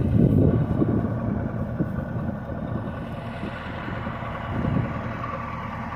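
A vehicle engine running steadily, louder for about the first second and a half, with some wind on the microphone.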